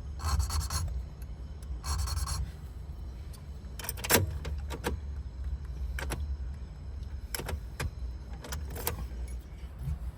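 Small metal lock parts and keys being handled: two short rasping scrapes near the start, then a scatter of sharp metallic clicks and ticks.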